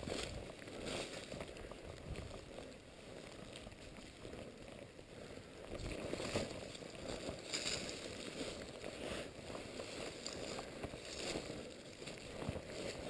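Footsteps crunching through dry leaf litter while walking downhill, a crisp rustling step about every second or so over a steady low rumble.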